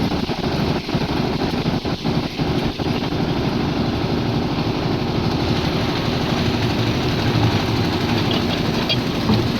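Engine of a concrete mixer machine running steadily at a constant speed on a slab pour.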